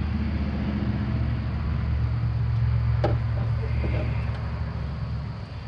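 A motor vehicle engine running with a steady low hum that fades away near the end, with a light metallic click about three seconds in.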